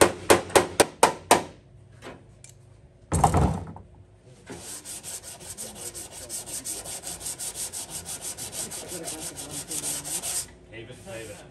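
A hand file scraping across bare sheet steel on a car fender in rapid, even, short strokes, to check the worked-out dent for high and low spots. It is preceded by about seven quick light taps of a pick on the metal in the first second and a half, and a single louder thump about three seconds in.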